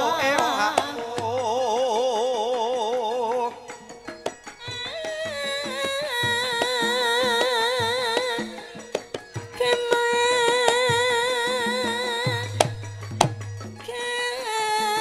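Javanese gamelan music with a female sinden singing long, ornamented phrases with a wide vibrato, pausing briefly twice, over sharp kendang drum strokes.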